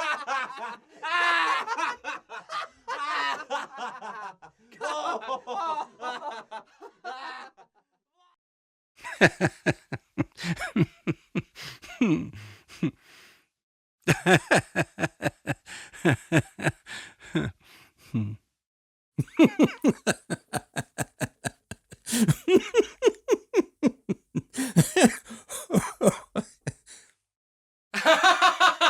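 A man laughing in a series of separate laughs with short silences between them. The first is a continuous, dense laugh; the later ones are fast chains of staccato 'ha-ha' bursts, several trailing off with a falling pitch.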